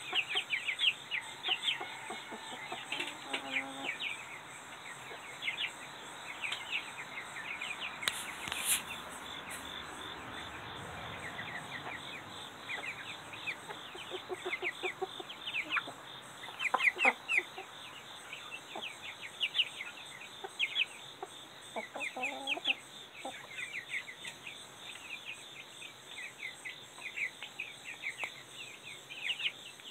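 Chickens clucking, with many short high chirps throughout and a few longer, lower calls now and then.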